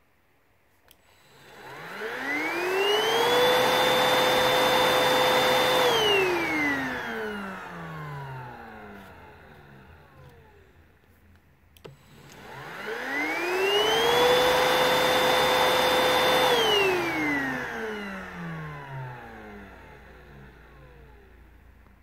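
Hoover Rhapsody cordless stick vacuum motor run twice: each time it spins up with a rising whine, runs a few seconds at a steady high whine with airflow hiss, then winds down with a falling whine. The second start comes about halfway through.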